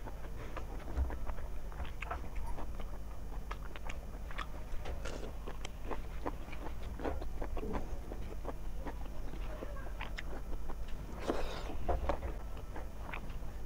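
Close-miked eating by hand: chewing and lip smacks, and fingers mixing rice and chicken curry on a plate, a steady run of short wet clicks over a low hum.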